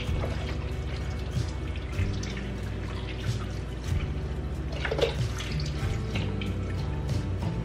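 Chicken broth being poured from a carton into a slow cooker, with background music underneath.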